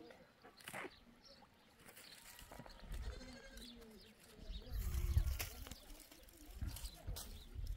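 Livestock bleating a few times in wavering calls, with a low rumble, the loudest sound, about five seconds in.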